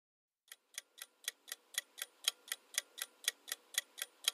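Clock-tick sound effect of a quiz countdown timer: even, sharp ticks about four a second, starting about half a second in and growing a little louder.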